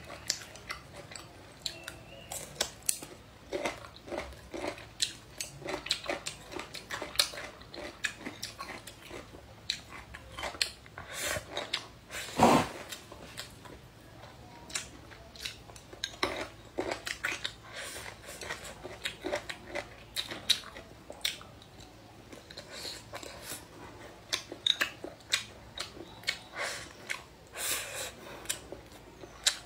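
Close-up eating sounds: a person biting and chewing spicy chicken offal and roasted green peppers, with many short wet clicks and crackles and chopsticks touching the bowl, and one louder thump about twelve seconds in.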